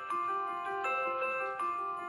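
Xiaomi 5 Plus mobile phone alarm ringtone playing: a quick melody of short, bell-like mallet notes, about four or five a second.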